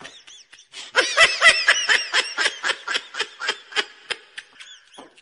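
High-pitched laughing sound effect: a rapid run of short cackles, about five a second, fading away near the end.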